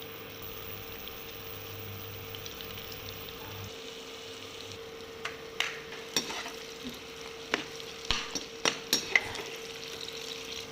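Chopped onions frying in oil in a pan with a steady sizzle. Over the second half a spatula stirs them, knocking and scraping against the pan several times.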